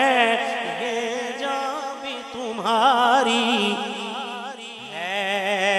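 Male naat reciter singing a long, drawn-out vocal line with strong vibrato and ornamented turns, with no words, over a steady drone held beneath.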